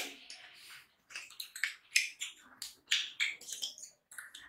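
Close-up eating sounds of rice and curry eaten by hand: an irregular run of short, wet mouth smacks and clicks from chewing, several a second.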